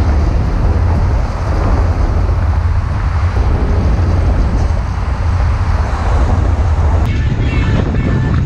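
Steady rush of wind on the microphone of a camera on a moving bicycle, mixed with motor traffic on the highway alongside. About seven seconds in it cuts off abruptly and music begins.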